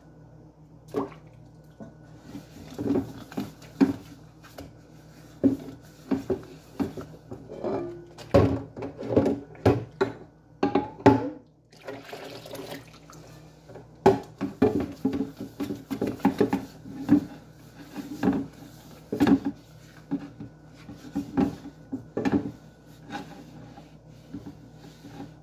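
Dishes being washed by hand at a sink: a metal bowl and other dishware scrubbed, rubbed and set down, giving irregular knocks and clinks, with water dripping.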